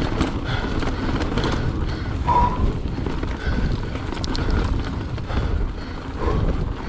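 Mountain bike riding fast down a rough dirt singletrack: wind rumble on the microphone and tyre noise, with frequent rattles and knocks from the bike over roots and bumps.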